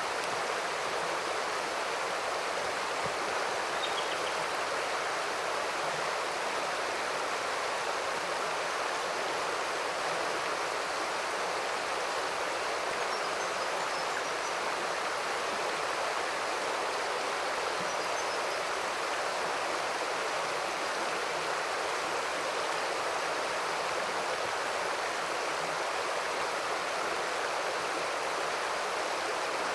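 River water running steadily at a river crossing, an unbroken rush of flowing water.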